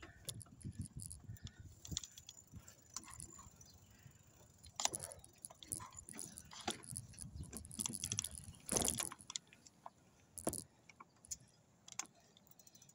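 Bicycle rattling over rough ground: irregular metallic jangling and clicks over a low rumble, with a few louder knocks.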